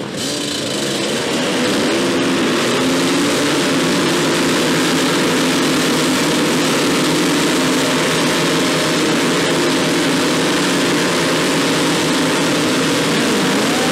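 A pack of stunt mopeds and motorcycles revving hard together in a group burnout, their rear tyres spinning on the asphalt. The engine noise builds over the first second or two and then stays steady and loud, many engine notes rising and falling over one another.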